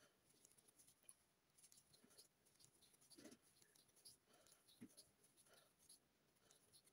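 Near silence with faint, irregular scratches and soft ticks of a crochet hook working thick yarn.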